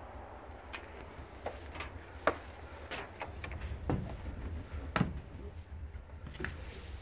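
Irregular knocks and clicks, about a dozen, the sharpest about two and five seconds in, over a steady low rumble, as of doors, drawers or handling in a small room.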